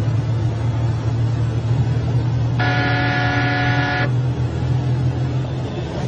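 Steady low rumble, with a single pitched honk, like a vehicle horn, that begins about two and a half seconds in and lasts about a second and a half.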